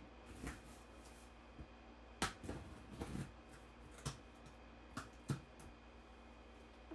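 Scattered light clicks and taps from handling objects, about seven over several seconds, over a faint steady hum.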